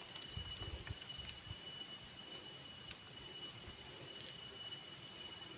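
Steady chorus of forest insects, a thin high continuous whine with a second, higher band above it. A few faint low bumps from handling come in the first second or so.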